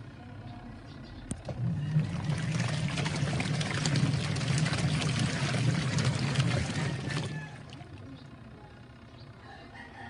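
Sharp 6.5 kg washing machine's wash tub agitating a load of clothes in water. The pulsator motor hums under the churning slosh of water for about six seconds, starting about a second and a half in and stopping near seven seconds, one turn of the agitation cycle before the pause.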